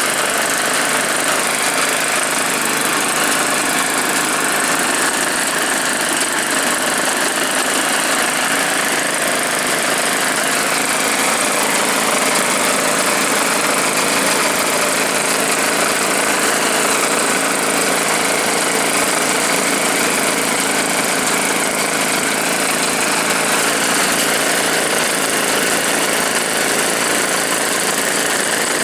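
Homemade snowblower powered by a Druzhba chainsaw's two-stroke engine, running steadily at an even speed without revving up or down.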